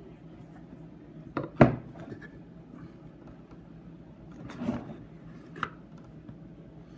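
Handling noise from photo prints being moved about on a surface: two sharp knocks about a second and a half in, a short rub a few seconds later, and a single click.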